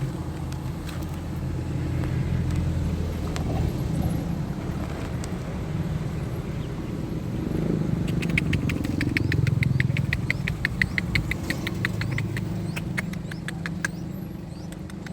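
Hungry nestling birds begging with a fast run of short, high cheeps, several a second, starting about halfway through and thinning out near the end, over a steady low rumble like a running engine or traffic.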